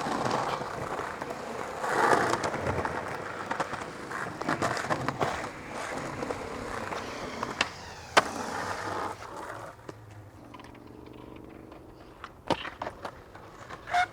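Skateboard rolling over rough pavement with repeated clacks and knocks of the board. The sharpest crack comes a little after eight seconds in; then the rolling dies away and a few lighter clacks follow.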